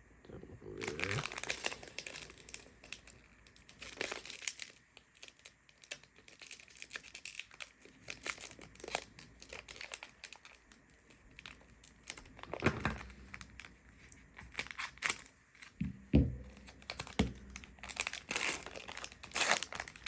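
Plastic wrapper of a football trading-card pack crinkling and tearing as it is ripped open, with the cards inside being handled. The rustles and sharp clicks come in irregular bursts.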